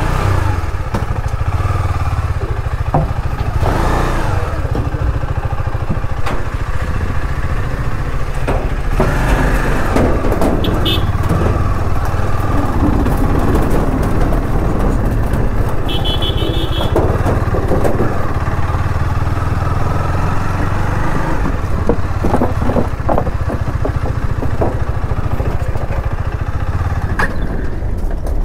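KTM Duke 250's single-cylinder engine running steadily at low revs as the motorcycle creeps along, with scattered short knocks and clatters.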